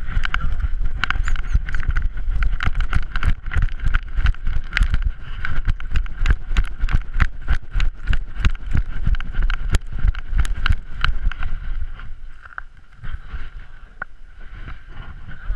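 Handling noise from a GoPro riding on a running puppy's back: rapid, irregular knocks and rattles, about four a second, as the camera and its cardboard mount jolt with each bound, over a low rumble of rubbing against fur and harness. It quietens for a few seconds near the end.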